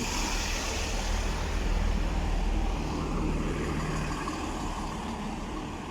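Class 165 diesel multiple unit running at the platform, a steady low engine rumble that eases slightly near the end.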